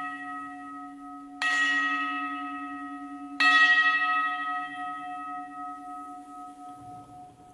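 Altar bell struck twice, about a second and a half in and again two seconds later, each stroke a clear ringing chord of several pitches that slowly dies away over the ring of a stroke just before. It is rung at the elevation of the chalice during the consecration of the Mass.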